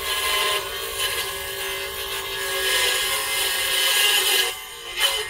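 Small benchtop mini table saw running with a steady motor whine while its blade rips through a thin wooden board, a loud rasping cutting noise that swells and falls with the feed. The cutting noise drops away briefly near the end.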